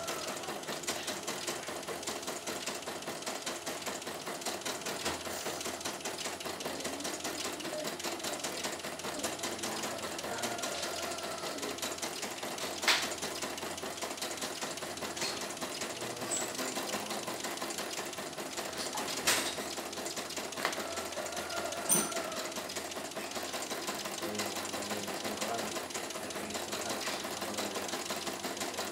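CNY E900 computerised embroidery machine stitching a design on a test run after repair, its needle going in a fast, steady rhythm as the hoop moves. A few sharp clicks stand out about halfway through and twice more shortly after.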